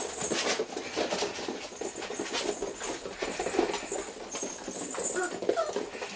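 A litter of five-week-old puppies playing on a vinyl floor: a busy patter of small claws clicking and scuffling, with a few short squeaky puppy noises in the middle.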